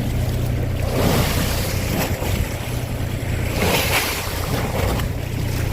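A boat's engine hums steadily under the rush of sea water and wind, and the rushing swells twice, about a second in and again near four seconds.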